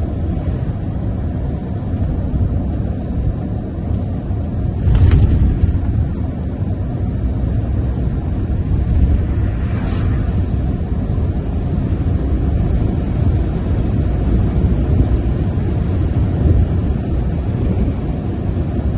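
Tipper truck driving along an open road: steady low engine and tyre rumble, with a brief knock about five seconds in and a fainter one about five seconds later.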